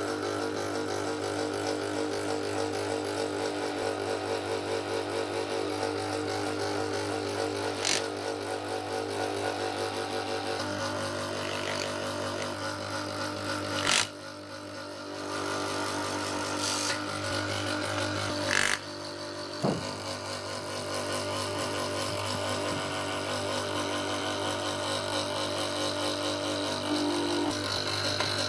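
A motor-driven machine running steadily with a low hum, broken by a few sharp clicks; the sound drops briefly about halfway through.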